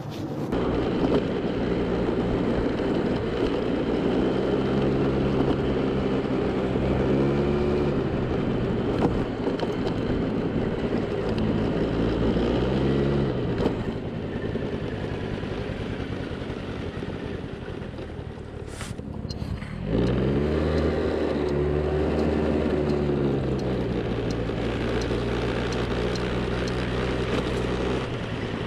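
Suzuki Address V100 scooter's two-stroke engine running, revved up and back down three times, with a quieter spell of idling in the middle.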